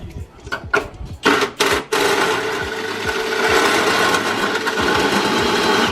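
Power drill running, with two short bursts in the first two seconds, then a steady run from about two seconds in as it cuts a hole.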